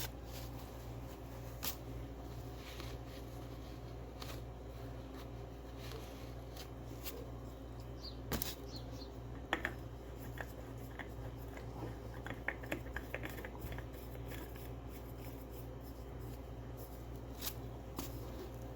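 Scattered light clicks and rustles of hands working on a motorcycle oil filter while it is being fitted, with a cluster of small quick ticks about two thirds of the way through. A steady low hum runs underneath.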